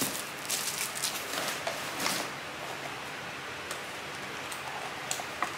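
Clear plastic packaging around a pack of flexible chopping boards crinkling and rustling as it is handled, busiest in the first two seconds and quieter after.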